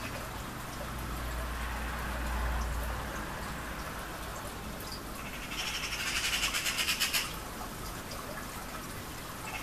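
Steady background noise with a low rumble early on. About five seconds in comes an animal call lasting roughly two seconds, high-pitched and quavering at about seven pulses a second.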